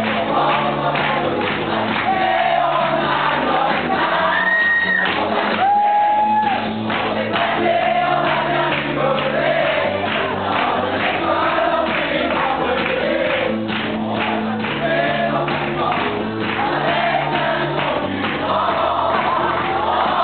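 A large group singing a French song together over instrumental music with a steady bass line.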